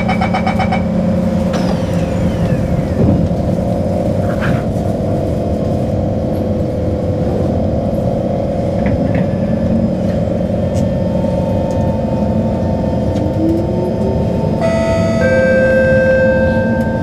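Singapore MRT train heard from inside the car. Rapid door-closing beeps end within the first second, then a steady electrical hum while the train stands. About 13 seconds in, the traction motors start up with a rising whine and stepped inverter tones as the train pulls away from the station.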